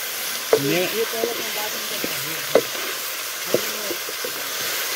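Meat sizzling as it fries in a blackened pot and is stirred with a wooden spatula. The spatula knocks against the pot three times.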